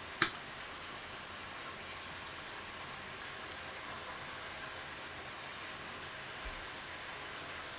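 A single sharp knock just after the start, a wooden spoon against a stainless steel mixing bowl, then a steady even hiss for the rest.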